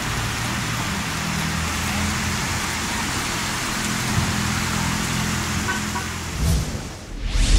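Torrential rain pouring down on a flooded street: a steady, dense hiss with a low hum underneath. Near the end a loud whoosh swells up.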